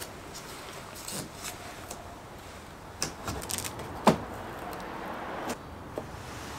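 Light knocks and rustling as a plastic front splitter is held against a car's front bumper and taped in place with masking tape. There are a handful of short taps, the sharpest about four seconds in.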